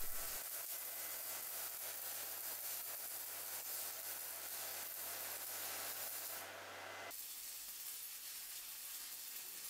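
Steady hiss of a DC welding arc with a faint hum under it. About seven seconds in it switches to a slightly softer hiss, as the welding current drops from about 140 amps to about 60 amps.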